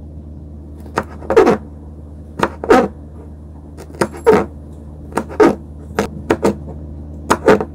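Kitchen knife chopping tender moringa drumsticks on a cutting board: a run of sharp, irregular knocks, often in quick pairs, over a steady low hum.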